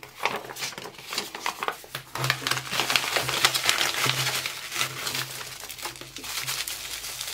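Paper and plastic bubble-wrap packaging crinkling and crackling as hands unwrap a small parcel by hand, a dense, continuous run of crackles.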